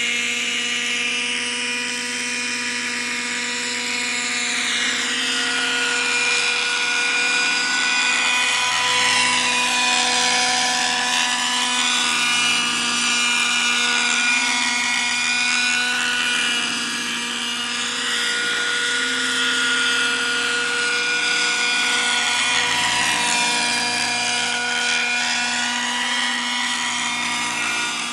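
Raptor 50 RC model helicopter in flight, its nitro glow engine and rotor running at a steady high pitch, the sound swirling slowly up and down in tone as the helicopter moves about the sky.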